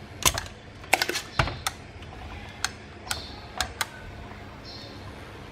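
Irregular sharp clicks and taps of hand tools being handled at a circuit board, about nine of them in the first four seconds, then only a faint steady background.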